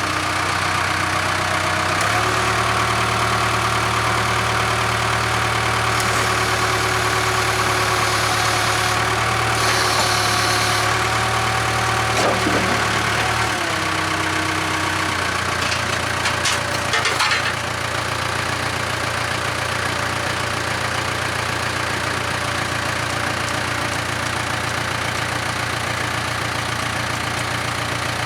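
Heavy diesel engine just started, idling steadily. From about two seconds in until about halfway it runs heavier and louder, then it settles back to idle, with a few light metallic clicks a little after that.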